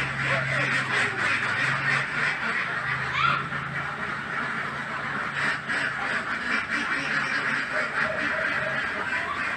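Animal calls in the background: a dense, rasping chatter, with a low steady hum under it that fades out near the end.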